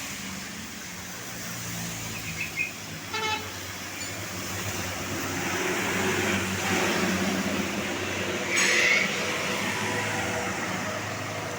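Road traffic going past, with an engine's hum swelling as a large vehicle passes about halfway through. A short horn toot comes about three seconds in, and a brief, louder horn blast comes near the end.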